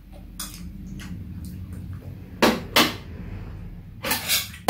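Metal chopsticks and spoons clicking against dishes on a metal tray while eating: a sharp click about half a second in, two close together past the middle, and a longer clatter near the end, over a steady low hum.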